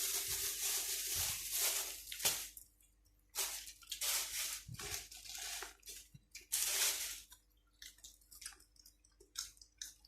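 Close-up eating sounds: chewing and crunching of grilled-pork salad with raw vegetables, in short irregular bursts with quiet gaps. A steady hiss runs through the first two seconds.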